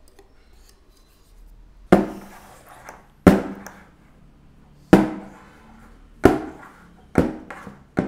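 A small ceramic bowl full of thick chocolate pudding knocked down on the countertop, about six sharp knocks with a short ring after each, coming a little quicker near the end.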